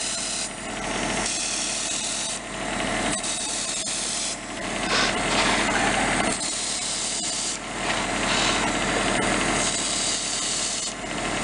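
Paint being sprayed in repeated hissing bursts, each a second or two long, over a steady mechanical hum.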